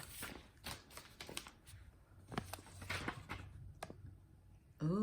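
Snack packaging crinkling and rustling as it is picked up and handled, an irregular string of small crackles and clicks.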